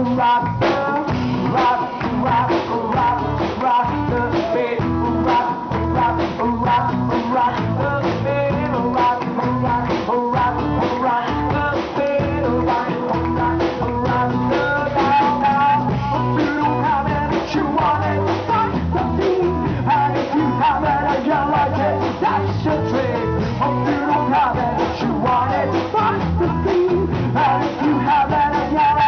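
Live band playing a song in an acoustic set: guitar and singing over a steady beat.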